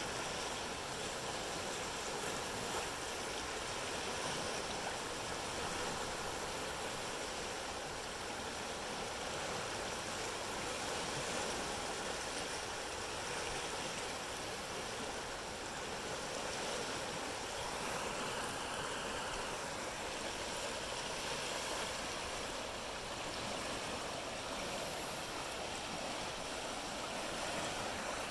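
Creek in flood after an inch of rain, running high at about 385 cubic feet per second: muddy water rushing and churning through riffles and around a fallen tree, a steady, unbroken rush.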